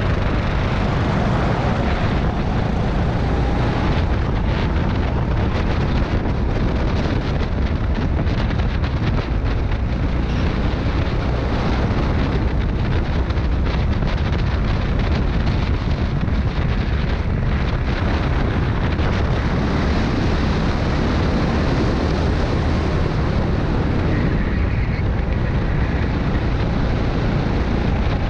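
Rental go-kart running at speed around a track, heard from a camera on the kart, its motor mixed with heavy wind rushing over the microphone in a steady, dense noise.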